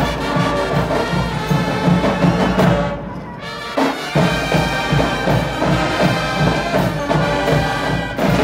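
A school marching band of brass and drums playing, with trumpets and a steady pulse of drums. The music thins briefly about three seconds in, then comes back in full.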